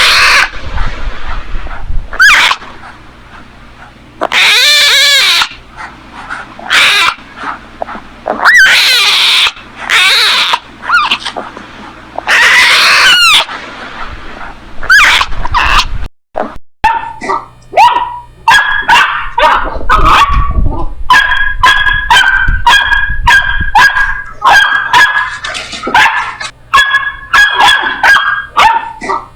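Puppies crying and yipping: long, drawn-out whimpering cries in the first half, then after a brief break many short, high yips in quick succession.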